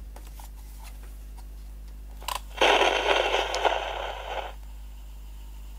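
Light clicks from the piano-key controls of a Siemens Trabant RC 601 portable cassette recorder. About two and a half seconds in, a loud burst of crackling comes from its small speaker, lasts about two seconds, then cuts off to a faint hum. This is the crackling upon turn-on that is one of this old recorder's faults.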